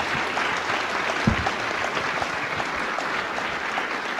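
Lecture audience applauding steadily, with one low thump about a second in.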